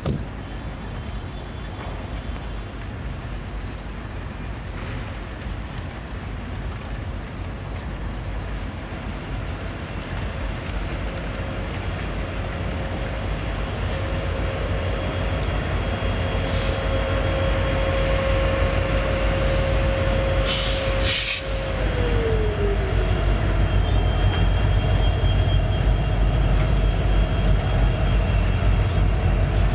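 Freight train with BNSF diesel-electric locomotives passing close by: the low engine rumble grows louder as the three units approach, and a steady whine drops in pitch as they go past about two-thirds of the way through. The steady rumble of hopper cars rolling on the rails follows.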